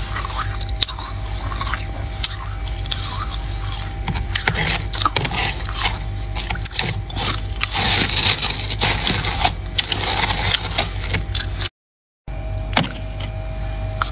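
A spoon scraping through soft freezer frost: a rapid, grainy crunching with many small crackles. It cuts out completely for about half a second near the end.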